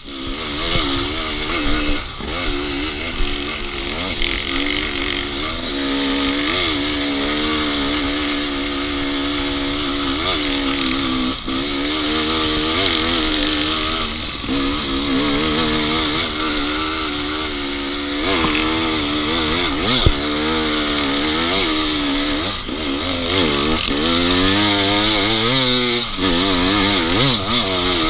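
Dirt bike engine running under way, its revs rising and falling over and over as the rider works the throttle, with the rush of air and tyre noise underneath.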